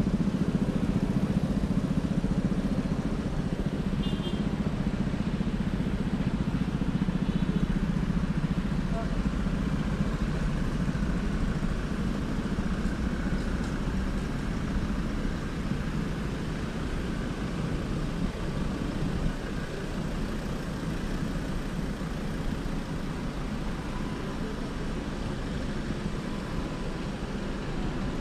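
Road traffic: cars and motorcycles running along the street, a steady engine rumble that is louder in the first several seconds and eases a little after.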